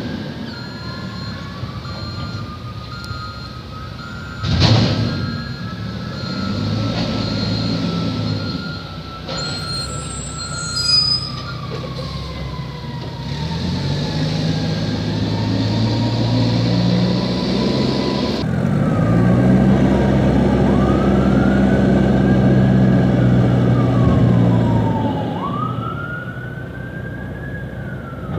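Mack MR front-loader garbage truck manoeuvring, its diesel engine running and revving harder for several seconds in the second half. A reverse beeper sounds at first. There is a loud clank about five seconds in and a high squeal around ten seconds. A whine rises and falls in pitch several times, climbing sharply near the end.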